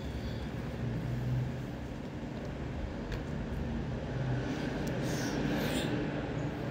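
Steady low outdoor rumble, with a breathy hiss of a person's breathing from about four and a half seconds in.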